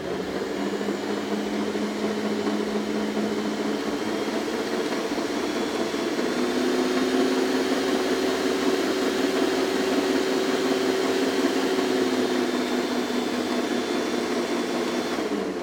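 Electric mixer on its stand running while it kneads a flour-and-water dough, a steady motor whine. Its pitch steps up slightly about five seconds in, and it is switched off near the end.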